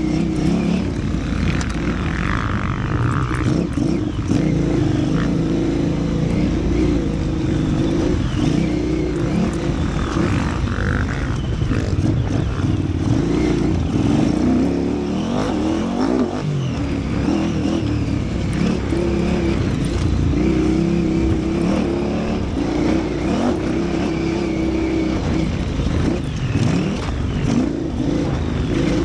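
KTM 950 Super Enduro's V-twin engine running hard, heard onboard, with the revs rising and falling as the bike is ridden.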